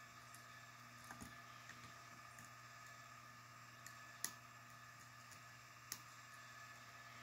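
Faint, sparse metallic clicks of a hook pick working the pins of a Sterling euro cylinder lock, the two sharpest about four and six seconds in, over a low steady hum.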